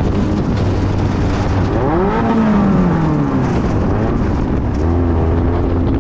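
Class 5 unlimited off-road race car's engine revving: it climbs sharply about two seconds in, drops back, then runs on steadily under a heavy low rumble.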